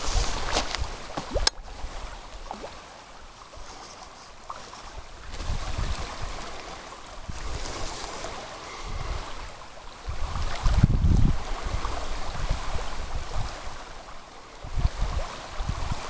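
Shallow creek water running, with wind gusting on the microphone in low rumbles, strongest about ten seconds in. A couple of sharp clicks near the start.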